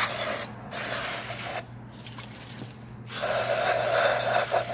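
Aerosol cleaner sprayed through its straw nozzle into a throttle body to clear the gunk, hissing in bursts: two short ones in the first second and a half, then a longer one from about three seconds in.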